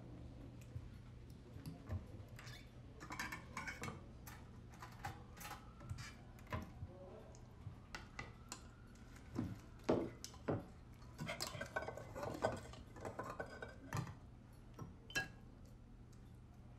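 Forks and a serving spoon clinking and scraping against plates and a metal pot during a meal: scattered light clicks at irregular intervals over a low steady hum.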